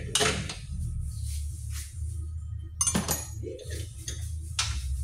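Hand tools clinking against metal in a Honda Brio's engine bay during an engine-mount replacement: a few sharp metallic clinks, over music playing in the background.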